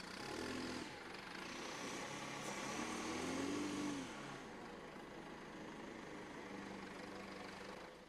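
Backhoe loader's diesel engine running, its pitch rising and then falling about three seconds in as the front bucket tips out its load of dirt.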